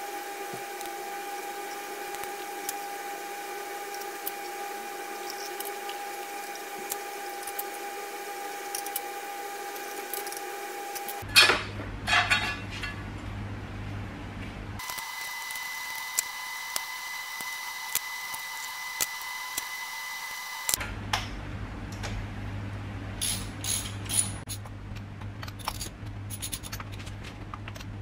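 Hand tools clicking and clinking on metal parts in an SR20DET engine bay as the engine cover is unbolted and lifted off, with a few louder knocks about eleven to twelve seconds in. Behind it runs a steady hum that changes pitch abruptly a few times.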